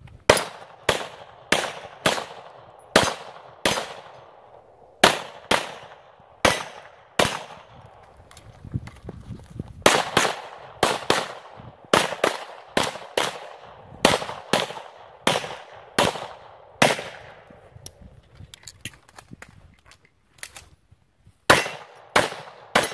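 A 9mm 2011-style pistol (Hayes Custom 5-inch) fired in a long string of shots, most about half a second apart, in quick pairs and runs. There is a lull of a few seconds before the last few shots.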